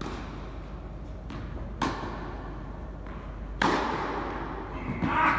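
Tennis ball hit by rackets and bouncing on an indoor court during a rally, each impact echoing in the hall. Two loud hits come about two seconds apart, with fainter hits or bounces before each.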